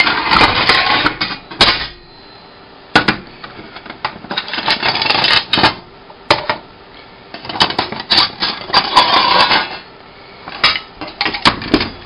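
Small metal tins and cookware clattering and clinking as they are handled and rummaged, in several bursts of rattling with sharp clicks.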